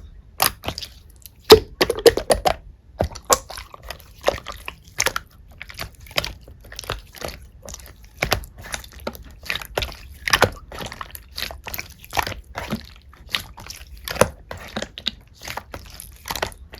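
Black slime being squished and pressed by hand, giving an irregular run of short wet clicks and pops, several a second.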